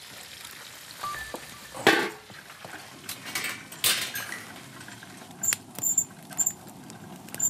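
Conger eel pieces grilling on a wire mesh over a wood fire: scattered crackles and pops, with two sharper snaps about two and four seconds in and a few short high squeaks near the end.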